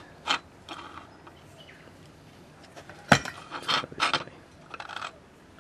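A few short clicks and knocks of a printed circuit board being handled and shifted on a hard bench. The sharpest knock comes about three seconds in.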